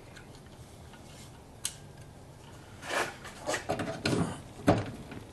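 Hand pop-rivet tool setting an aluminium pop rivet: a few squeezing strokes with metallic clicks, then one sharp snap near the end as the rivet sets and the mandrel breaks off.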